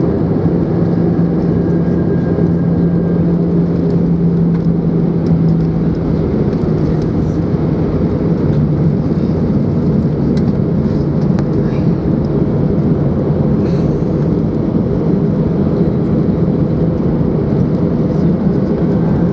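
Airbus A320's CFM56 jet engines and landing roll heard from the cabin over the wing: a loud, steady rumble with a humming tone that drops lower about six seconds in, as the aircraft slows on the runway after touchdown.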